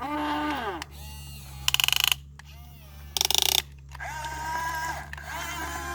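Small electric motors and gearboxes of an RC excavator whining in short runs, their pitch gliding as they start and stop. Twice, about two and three seconds in, there is a loud burst of rapid ratchet-like clicking.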